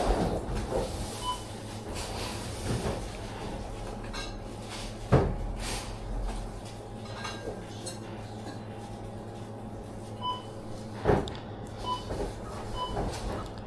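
Supermarket ambience: a steady background hum with occasional knocks and clinks of goods being handled, the strongest about five and eleven seconds in. Several short electronic beeps, mostly in the second half, typical of a checkout barcode scanner.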